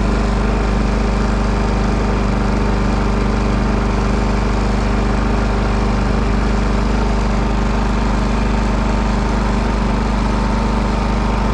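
WEN 56477i 4800-watt inverter generator running steadily, an even engine hum that holds one pitch.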